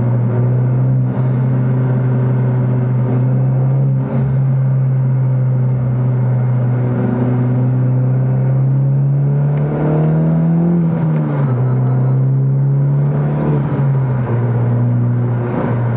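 Honda Civic Type R's turbocharged 2.0-litre four-cylinder engine and aftermarket Invidia Gemini R400 exhaust, heard from inside the cabin under acceleration on a Hondata tune. A steady engine drone that climbs in pitch about ten seconds in and then drops back.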